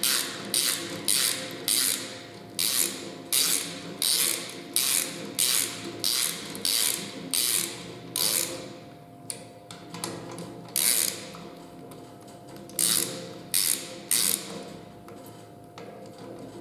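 Hand ratchet wrench clicking in short repeated strokes, about one and a half a second, as crankshaft bearing cap bolts are snugged down in a cross pattern before final torquing. The strokes stop about eight seconds in, and a few more, more widely spaced, follow.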